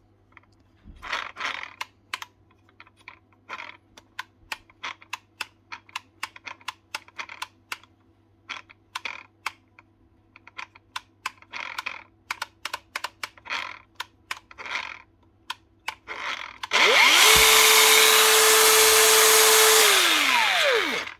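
DeWalt 54V FlexVolt brushless cordless angle grinder: its switch is clicked over and over, and the motor gives only short stuttering bursts instead of running. About 17 s in it spins up, runs loudly with a steady whine for about four seconds, then winds down. Signs of a faulty brushless motor that the owner judges must be replaced whole.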